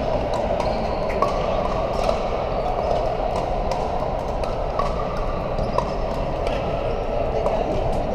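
Pickleball paddles hitting plastic balls on several courts: sharp clicks at irregular intervals over a steady background din of the hall.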